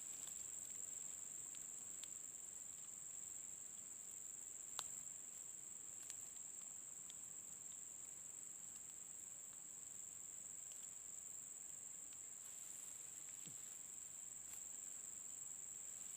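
Insects shrilling steadily in one high, unbroken note, with a few faint clicks over it, the clearest about five seconds in.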